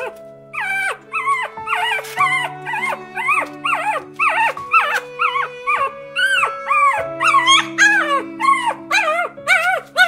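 A puppy whining and yelping over and over, short high cries that rise and then drop, about three a second, over background music with long held chords.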